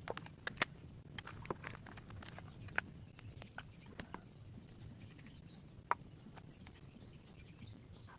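Scattered light clicks and taps at irregular intervals, most of them in the first half, with one sharper click about six seconds in, over a faint low hum.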